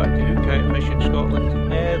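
Instrumental background music with held notes over a steady bass.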